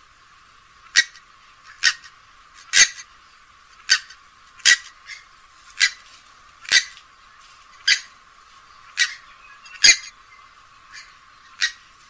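Grey-headed swamphen giving a series of short, sharp calls, about one a second, with a few weaker notes between.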